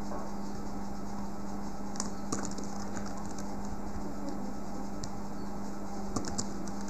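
A few scattered computer keyboard keystrokes and mouse clicks, short sharp ticks about two seconds in and again near the end, over a steady low hum and hiss.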